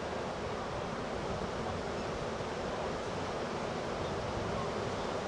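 Heavy hurricane-driven surf breaking and washing over the shallows in a steady, unbroken rush of white water.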